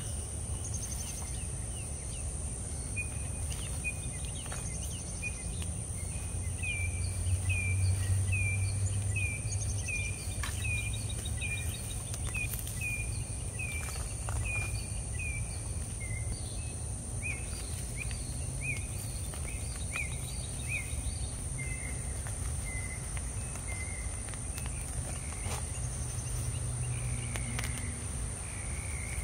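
Garden ambience: a bird repeats a short down-sliding whistled note about once a second, over a steady high insect drone and a low rumble.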